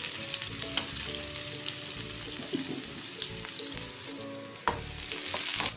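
Chopped onion, cumin seeds and a dried red chilli sizzling in about a tablespoon of hot oil in a nonstick frying pan, with soft background music.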